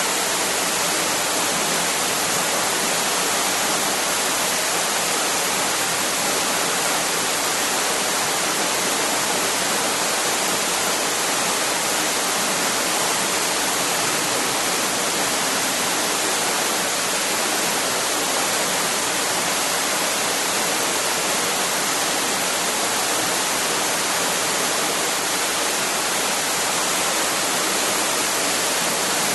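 Waterfall: falling water rushing steadily in an even, unbroken hiss with no changes.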